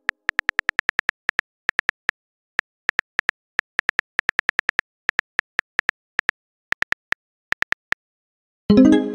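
Typing sound effect: quick, uneven keyboard taps clicking away. About a second before the end, a short plucked-sounding chime rings out as the message is sent.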